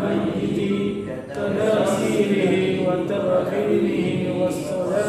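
A group of male voices reciting Arabic hadith text aloud together in unison, in a chant-like cadence.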